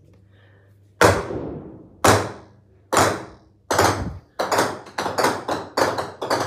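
Golf balls dropped and bouncing on a bare concrete floor, each bounce a sharp tap. The first tap comes about a second in. The bounces start about a second apart and come faster and faster, ending in a quick patter of three or four taps a second.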